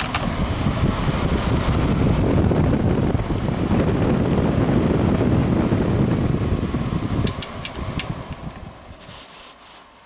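A 1999 Whirlpool ACM052XJ0 5,000 BTU window air conditioner's blower running, with air rushing out of the vent. A few sharp clicks come about seven to eight seconds in, then the sound dies away.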